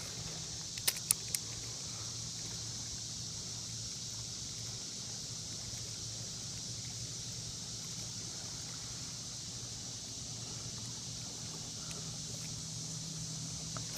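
A motor's steady low hum, with a steady high hiss above it. Three small clicks about a second in.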